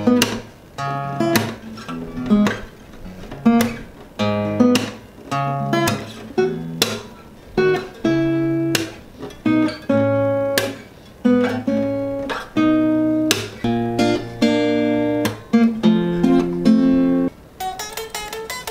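Acoustic guitar being strummed, one ringing chord stroke about once or twice a second, with the chord changing every few strokes. Near the end it gives way to a lighter, quicker picked part on an electric guitar.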